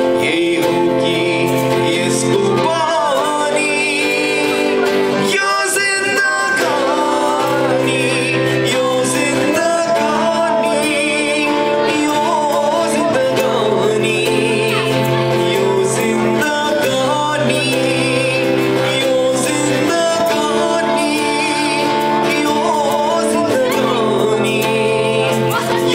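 Acoustic guitar strummed with a man singing over it, a live song through microphones.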